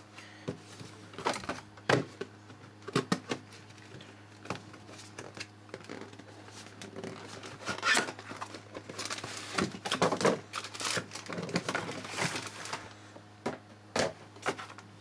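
Cardboard retail packaging being handled: the printed outer sleeve slid off the box and the inner cardboard box moved and set down, giving scattered taps, scrapes and rustles that are busiest in the middle.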